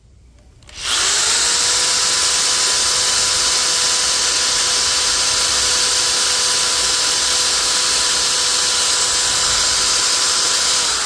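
Corded electric drill spinning up about a second in and running at a steady high whine, boring a pilot hole through a wooden block, then starting to wind down right at the end.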